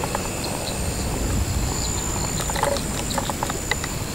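A quick run of sharp knocks and clicks in the second half, over a steady high whine and a low rumble.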